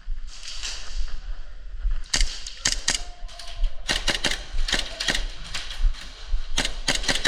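Airsoft guns firing in short strings of sharp pops: a few shots about two seconds in, a longer string about four seconds in, and another near the end.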